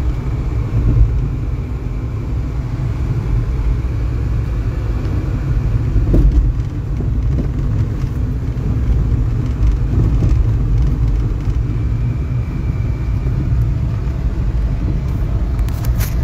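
Steady low rumble of a car on the move, heard from inside its cabin.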